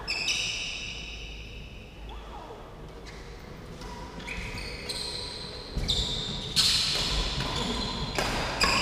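A badminton rally: shoes squeaking sharply on the court floor several times, with the short hits of rackets striking the shuttlecock coming thicker and louder in the second half.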